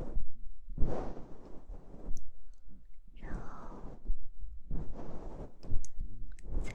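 Ear-cleaning tools rubbing and brushing close against the microphone, coming as soft swishes about half a second long every second or two, with a few small clicks between them.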